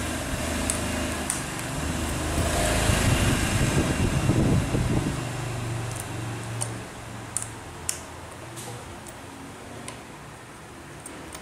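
Handling of tools and plastic packaging, then a steel hex key clicking in and against the bolts of a brush cutter's handlebar clamp as they are tightened, a few scattered clicks. A steady low hum runs underneath.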